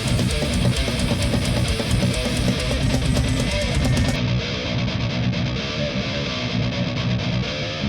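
Heavily distorted electric guitar playing a metal riff through a high-gain patch on a Boss GT-10 multi-effects pedalboard.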